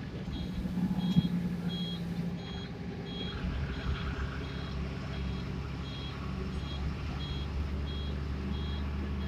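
A bus engine drones steadily as it drives, heard from inside the cabin, with an electronic warning beeper sounding just under twice a second throughout. There is a single knock about a second in.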